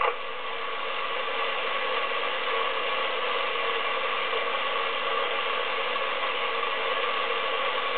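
President Lincoln 11-metre transceiver's speaker giving steady, even static on 27.650 MHz, squelch open with no station transmitting.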